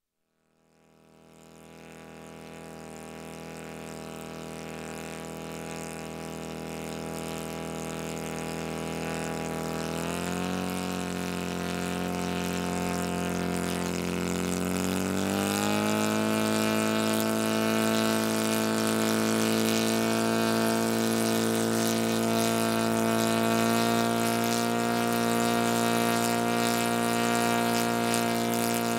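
Saito FG57TS flat-twin four-stroke petrol engine of a large model aircraft running on the ground, fading in at a low, steady speed. It is throttled up in two steps, about ten seconds in and again around fifteen seconds in, then holds a steady higher note.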